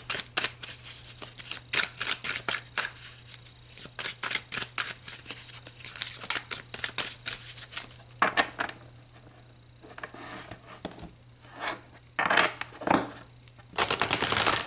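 A tarot deck being shuffled by hand, with a fast run of crisp card-flicking clicks for about six seconds. After that come quieter pauses broken by shorter bursts of shuffling.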